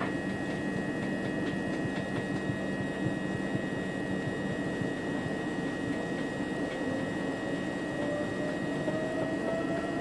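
Inside an electric passenger train moving off: a steady running rumble with a constant high whine. From about two-thirds of the way in, a thin tone rises slowly in pitch as the train gathers speed.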